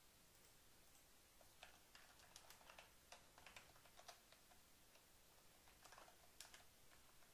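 Faint computer keyboard typing: quick runs of key clicks in a few clusters, starting about a second and a half in and stopping shortly before the end.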